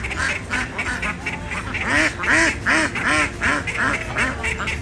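Mallard ducks quacking: a steady stream of short, repeated quacks from several birds, with a quick run of quacks about two seconds in.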